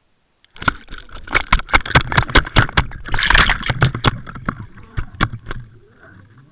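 Rapid, irregular series of sharp knocks and rushing, churning water picked up through an underwater camera housing as a pike thrashes close against it, loudest in the middle and thinning out near the end.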